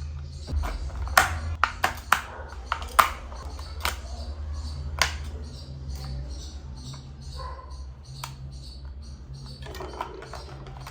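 A series of sharp clicks and knocks, most of them in the first half, over a steady low hum.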